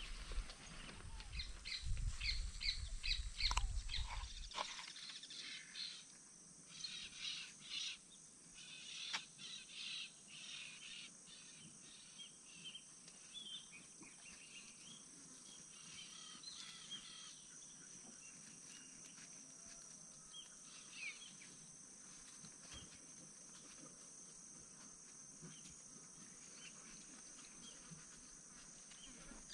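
Wild birds chirping and calling in short repeated notes, busiest in the first half, over a steady high-pitched insect drone. A low rumble runs through the first few seconds, then stops.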